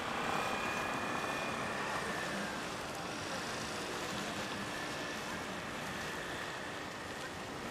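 Steady rushing of wind and sea water, with a faint low hum underneath.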